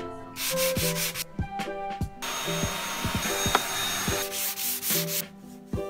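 Dyson cordless stick vacuum running on carpet for about three seconds, a steady rush with a high whine, starting about two seconds in. Before it there is a brief hiss, and background music with a steady beat plays throughout.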